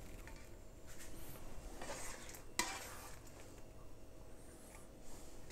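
Spatula scraping and stirring in a metal wok as cooked shrimp in tomato sauce are scooped out, with one sharp metallic clink about two and a half seconds in.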